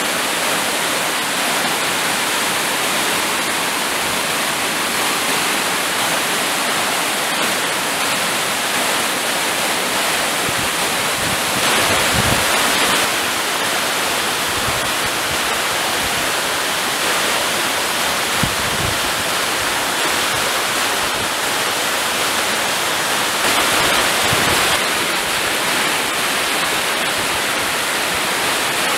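Waterfall cascading down over rock ledges into a pool: a steady, dense rushing of falling water that swells a little louder twice.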